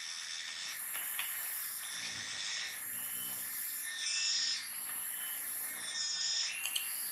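Forest ambience: a high, hissing drone that swells and fades in regular pulses about every second and a half.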